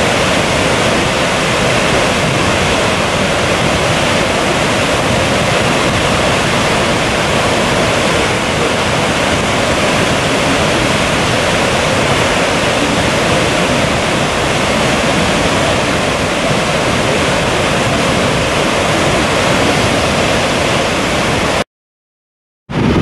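Goðafoss waterfall's water falling and rushing, a loud, steady, even roar of water; it breaks off into silence for about a second near the end.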